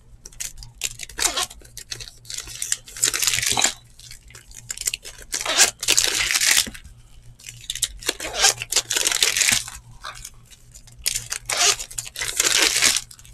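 Pack wrapper of Topps baseball trading cards tearing open and crinkling, along with the rustle of cards being handled, in several separate bursts of a second or two each.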